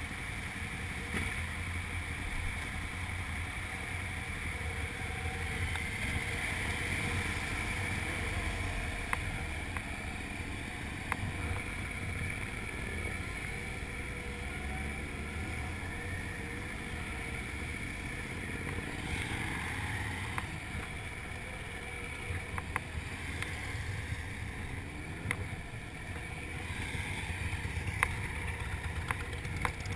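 Motorcycle engine running under way, with wind noise on the camera microphone and a few light knocks.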